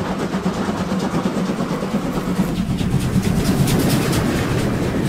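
Steam locomotives working hard past at speed: a loud, dense rumble of running gear and steam, with the exhaust's quick rhythmic chuffs coming through strongly in the second half.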